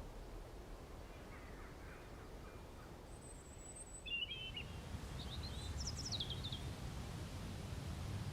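Faint background ambience with a few short, quick bird chirps in the middle. A low rumble grows a little louder about halfway through.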